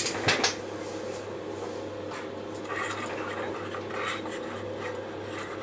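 Plastic scale-model tank parts handled on a cardboard-covered workbench: a few light clicks and knocks as a part is set down or picked up about half a second in, then soft rubbing and scraping of plastic against cardboard and hands twice further on, over a steady low hum.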